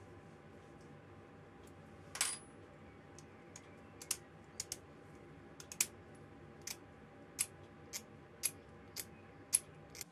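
Light metallic clicks of small steel machined parts handled by hand: a short clatter about two seconds in, then a string of sharp ticks every half second to a second, over a faint steady hum.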